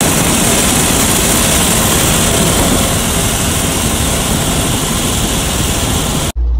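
Modified tractor's diesel engine running at road speed, a loud, steady rush of engine, exhaust and wind noise. It cuts off abruptly near the end.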